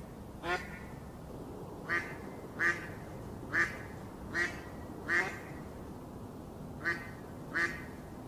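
A duck quacking: eight short single quacks at uneven intervals, with a pause of over a second about two-thirds of the way through, over a faint steady background noise.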